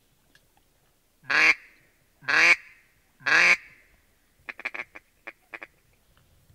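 Mallard-style quacking: three loud, drawn-out quacks about a second apart, then a quick run of short quacks.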